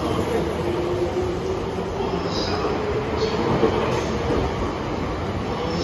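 JR East 651 series 1000-subseries electric train pulling out at low speed, its cars rolling past with a steady rumble of wheels on the rails.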